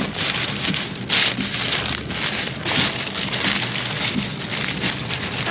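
Heavy rain falling: a dense steady hiss that swells and eases every second or so.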